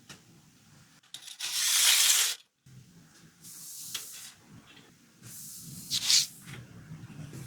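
Hissing sprays of cleaning liquid onto a dirty toy car, in three bursts: the longest and loudest about a second and a half in, then two shorter ones.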